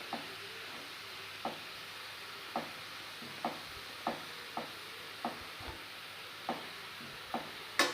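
Carrots sizzling in hot ghee as they are sautéed, with a steady hiss. A utensil knocks against the pan about ten times as they are stirred.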